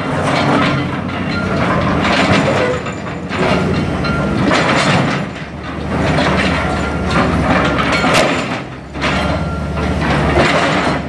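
CAT excavator's concrete crusher jaw biting into and breaking up concrete slabs, with repeated bursts of crunching and grinding every second or two over the steady hum of the diesel engine.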